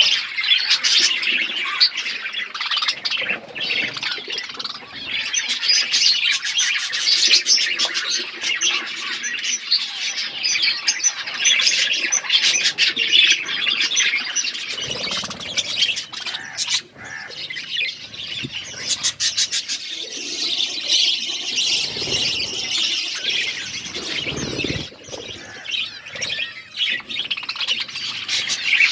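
Budgerigars chirping and chattering nonstop: a dense run of short, high chirps and warbles from several birds at once.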